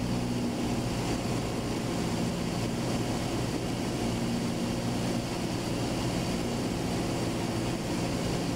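Light airplane's piston engine and propeller running steadily, heard inside the cockpit as an even droning hum.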